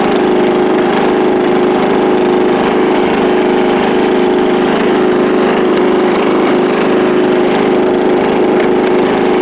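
Riding lawn mower engine with a custom exhaust, running loud and steady at a constant speed while the mower is driven.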